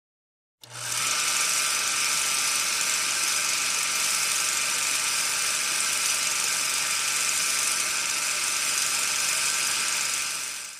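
A steady mechanical whirring hiss, like a small motor running, starting about half a second in, holding level, and fading out at the end.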